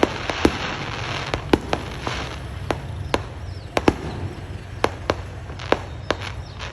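Fireworks going off: sharp bangs at uneven intervals, about a dozen over several seconds, some close together, with a noisy haze between the bangs early on.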